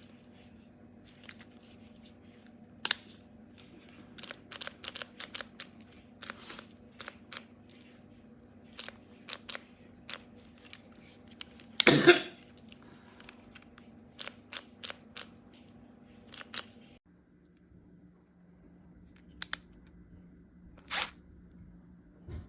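Handling noises: scattered sharp clicks and taps, with one louder scrape or clatter about twelve seconds in, over a steady low hum that drops in pitch about seventeen seconds in.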